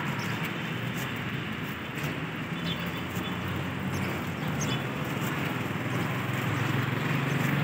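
Steady city street traffic noise: a continuous low hum of passing cars.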